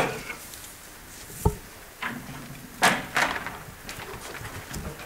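A bundle of willow rods handled on a wooden table: a dull knock about one and a half seconds in, then several short rustling, clattering swishes of the rods.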